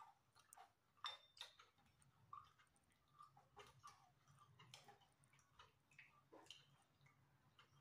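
Faint eating sounds: irregular soft clicks of a plastic spoon against a bowl, with mouth and chewing noises, over a low steady hum.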